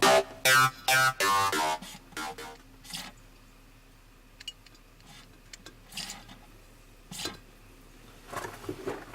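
Electronic background music that stops about two seconds in, followed by faint scattered clicks and taps.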